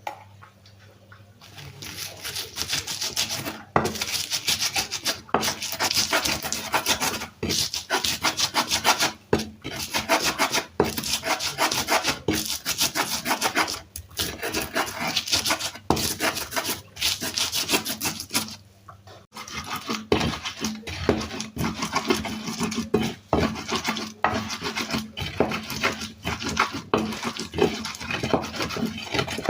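Spices being ground by hand with a pestle (ulekan) in a stone mortar (cobek) to make a bumbu ulek paste: rapid, repeated grinding and scraping strokes, stopping briefly about two-thirds of the way through before starting again.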